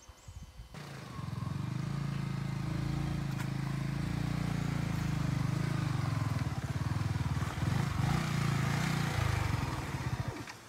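Yamaha R15 sportbike's single-cylinder engine running at low revs as the bike is ridden slowly over a rough, muddy track, the pitch shifting a little with the throttle. It starts about a second in and cuts off near the end.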